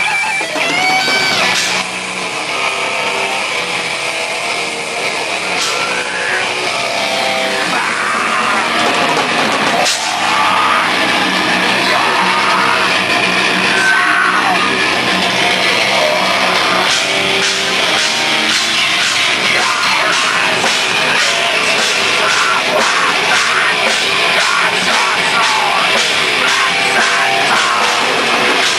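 Metal band playing live: electric guitars with a lead line that bends up in pitch about a second in, and even, fast drum hits driving the second half.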